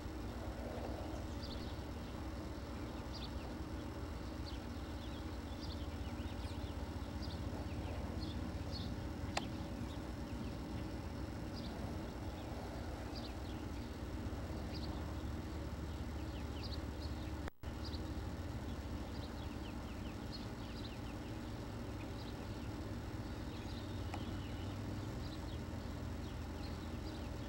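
Small birds chirping in short, scattered high calls over a steady low rumble, with a single sharp click about nine seconds in and a brief dropout in the sound a little after halfway.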